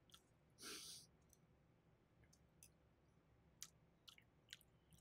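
Faint eating sounds close to the microphone: scattered small, sharp mouth clicks while chewing, and one short breath or sigh out about a second in.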